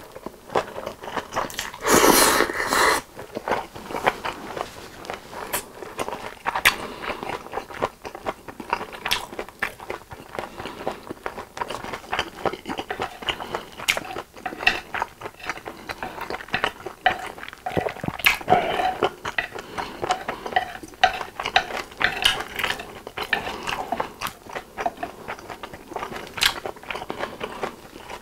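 Close-miked eating of japchae sweet-potato glass noodles: a loud slurp about two seconds in, then steady wet chewing with many short smacking clicks.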